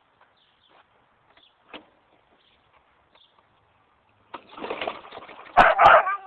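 Faint bird chirps, then about four seconds in a dog starts barking loudly, with two sharp barks near the end.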